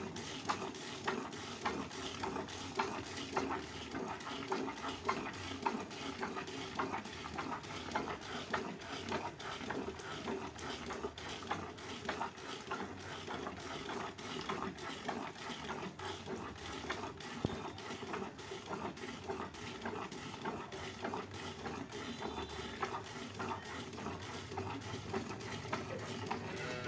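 Cow being milked by hand into a plastic bucket: a steady rhythm of milk squirts striking the bucket and the milk already in it, as the two hands work the teats in turn.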